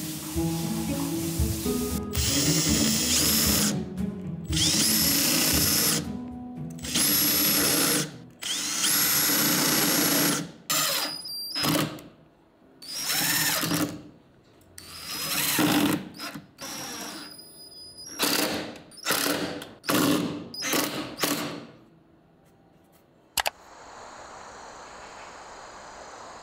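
Makita cordless impact driver driving screws into a wooden cabinet panel, running in about a dozen bursts with a high motor whine. The first runs last a second or two each, and near the end they become short, quick bursts.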